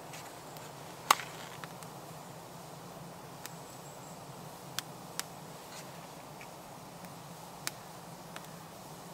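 Handling a hurricane lantern and a box of matches to light it: a sharp knock about a second in, then a few light, separate clicks, over a faint steady background.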